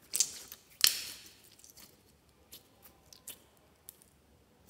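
Sticky slime being squeezed and pulled apart by hand. There are two loud crackling pops about a quarter-second and just under a second in, then scattered fainter clicks and pops.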